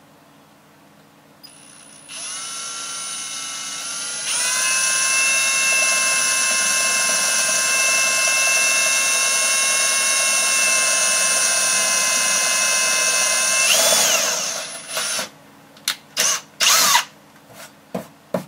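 Cordless drill boring a hole through a thin RV wall panel: the motor starts at a slow speed about two seconds in, steps up to a higher steady whine, then winds down near the end, followed by a few short bursts on the trigger.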